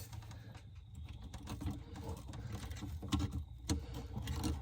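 Faint scattered clicks, taps and rubbing of hands handling and assembling a 30-amp shore power plug's parts and wiring, with a couple of sharper knocks near the end.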